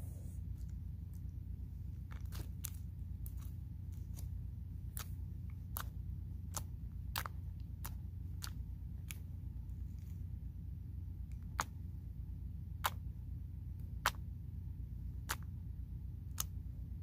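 Clear slime being pressed and poked by hand, giving sharp clicks and pops at irregular intervals over a steady low hum; a few clicks in the second half are louder than the rest.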